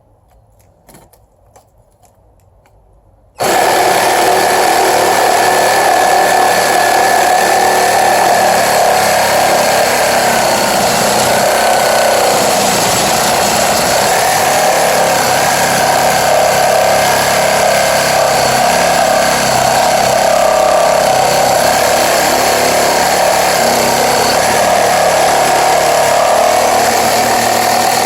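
Mereced 20V cordless reciprocating saw with a brushed motor and a coarse 6 TPI wood blade. After a few light clicks it starts abruptly about three seconds in and runs steadily, sawing through a 2x3 piece of wood.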